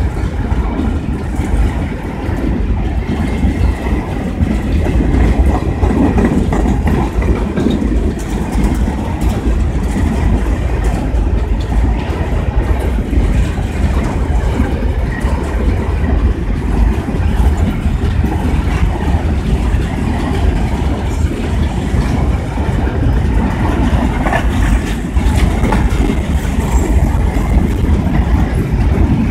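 Long train of empty freight wagons rolling past close by: a steady rumble of steel wheels on the rails, with clicking as the wheels pass over the rail joints.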